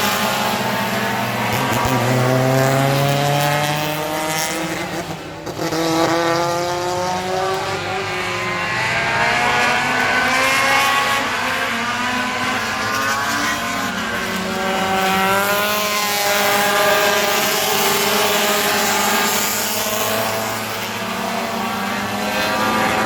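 Several Pro Compact race cars running on a short oval, their engine notes repeatedly climbing as they accelerate and dropping as they back off, with cars passing close by.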